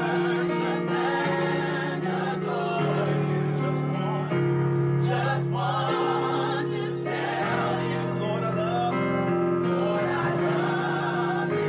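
Gospel vocal group singing a worship song in harmony over sustained instrumental accompaniment.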